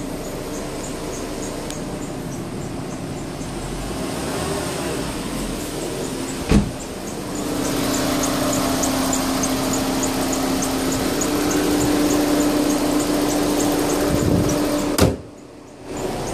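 Volkswagen 1.4 TSI petrol engine running, with a high-pitched squeak repeating rapidly and evenly in step with the engine's revolutions; the cause is unknown to the owner. The engine note grows louder and steadier from about halfway, and two sharp knocks come about six seconds in and near the end.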